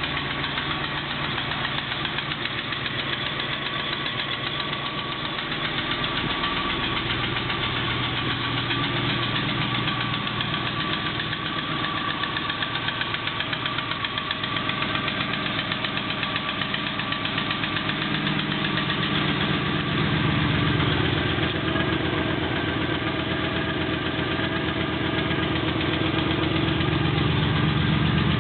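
Triumph Stag 3.0-litre V8 idling from a cold start with a knock from the engine. Its idle speed shifts a couple of times, about six seconds in and again about two-thirds of the way through.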